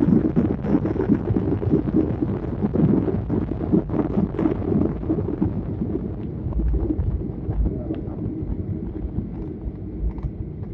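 Airliner cabin noise on the runway just after landing: a loud, uneven low rumble from the engines and the wheels on the tarmac. The rumble eases after about five seconds, with a few low thumps in the second half.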